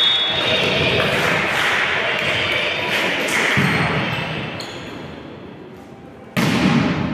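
Volleyball being played in an echoing sports hall: dull thuds of the ball being struck amid voices from players and spectators. Near the end the noise of the hall jumps up suddenly.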